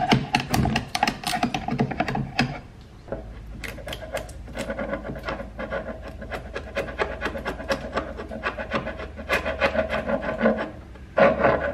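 Sharp wood chisel scraping old paint off hardwood door trim in quick repeated strokes, heavier for the first couple of seconds and again just before the end, lighter in between.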